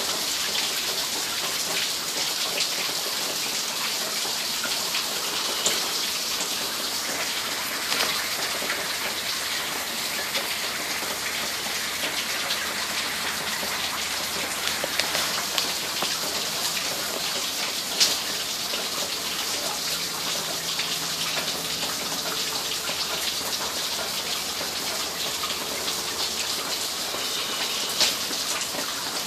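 Steady rain falling, an even hiss, with a few sharper taps of drops, the clearest about 18 seconds in.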